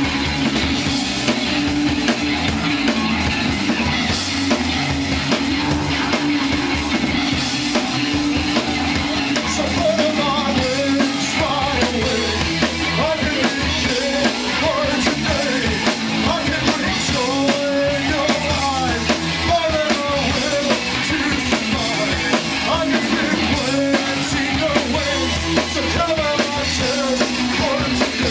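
Live rock band playing: electric guitar, bass guitar and drum kit, with a man singing into a microphone from about ten seconds in.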